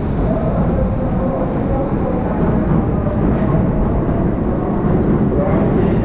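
Electric commuter train running alongside a station platform: a steady, loud low noise with no breaks.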